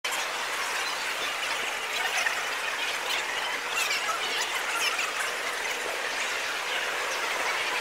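Crowd chatter in a busy convention hall, sped up to four times normal speed, so that many voices blur into a dense, squeaky, high-pitched babble.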